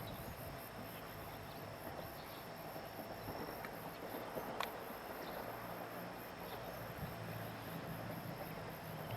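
Insects chirping in a fast, even pulse, high-pitched and faint, over a low steady hum, with a single sharp click about halfway through.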